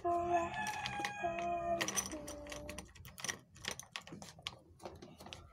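A young girl humming a few held, wordless notes for about the first half. Then a run of light, irregular clicks and taps, the sounds of drawing and handling paper on the table.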